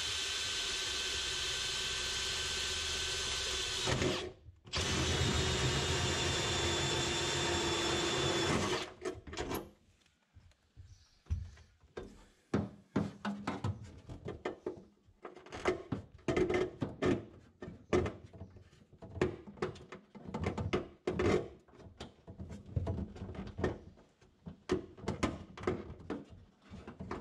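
Cordless drill boring a hole through the boat's sheet-aluminium bulkhead: it runs steadily for about four seconds, stops briefly, runs about four seconds more and stops. After that come irregular light knocks and clicks of hand work at the new hole.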